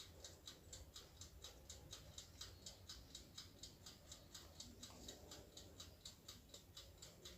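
Faint, very regular ticking, about four to five ticks a second, keeping an even pace throughout.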